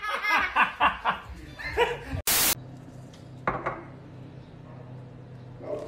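A run of short, yelping cries for about two seconds, cut off by a brief loud burst of noise, followed by a low steady hum.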